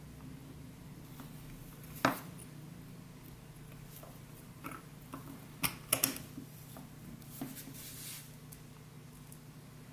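Two halves of a 3D-printed plastic cylindrical coupling being fitted together by hand, its locking tabs slotted in and turned: a sharp plastic click about two seconds in, then a quick cluster of clicks and knocks around six seconds, with light scraping and a few softer ticks between.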